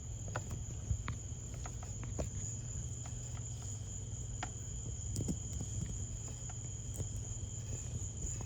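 A steady high-pitched trill and a low hum run throughout. Over them come scattered light clicks and taps as multimeter probes are handled at an electric scooter battery's discharge port.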